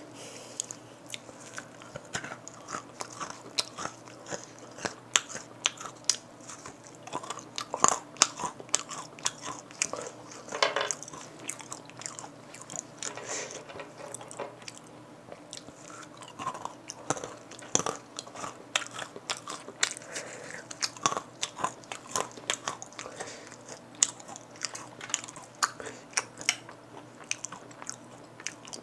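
Close-miked crunching and chewing of spicy seasoned peanuts, a steady run of sharp, irregular crunches.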